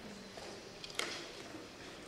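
Quiet hall ambience with a faint steady hum, a few small clicks and one sharper click about halfway through.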